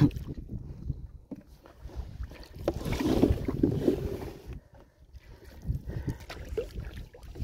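Water sloshing and splashing as a small boat is pushed along with a pole, with short knocks against the hull and low wind rumble on the microphone. The splashing is loudest in the middle.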